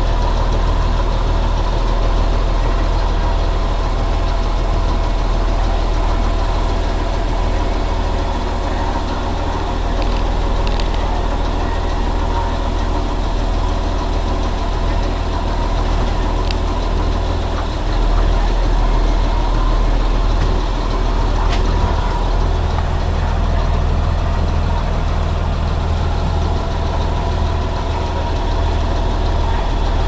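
Blue Bird Vision school bus engine idling steadily, heard from inside the driver's cab.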